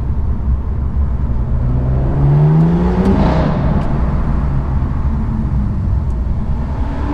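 BMW M2's N55 turbocharged straight-six through an M Performance exhaust, accelerating with a rising note for about a second and a half, then easing off over a steady deep rumble.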